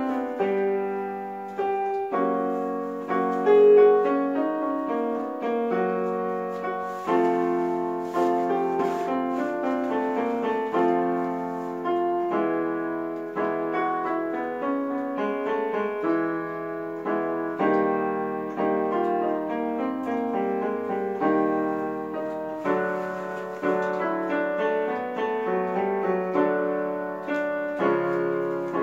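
Electronic keyboard in a piano voice playing chords and short note patterns that change every second or two, as accompaniment for a vocal scale exercise.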